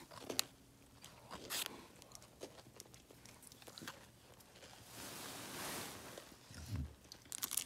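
Faint close-up chewing and crunching of a hard-baked cookie brownie, with scattered mouth clicks and a soft hiss about five seconds in.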